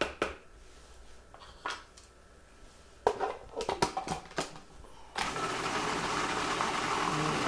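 A few plastic knocks and clatters as the food processor's feed tube and lid are handled. About five seconds in, the food processor's motor starts and runs steadily, blending hummus.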